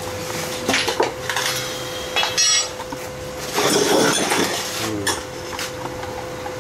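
Metal tools and parts clanking and clinking, several separate knocks with a ringing clink about two and a half seconds in, over a steady hum.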